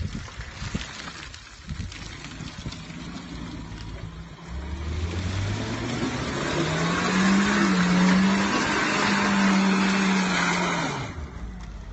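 Suzuki Jimny's 1.3-litre four-cylinder petrol engine running quietly, then revved hard about four seconds in and held high for several seconds with a loud rushing noise over it, before dropping back near the end.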